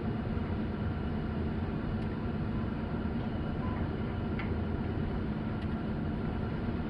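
Hitachi long-reach excavator's diesel engine running steadily.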